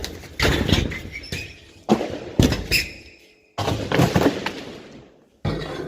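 Ceiling drywall being broken down: several separate crashes and thuds, each with a short rattle of falling debris after it.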